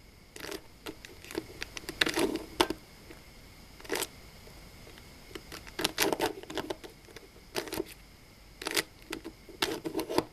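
A 3x3 Rubik's cube being twisted through a sequence of moves: irregular clusters of plastic clicks and clacks as its layers turn, with short pauses between groups of turns.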